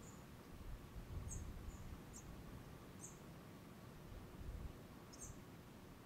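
A small bird chirping outdoors at dawn: four short, high chirps, each falling in pitch, spaced about a second apart with a longer gap before the last, over a faint low rumble.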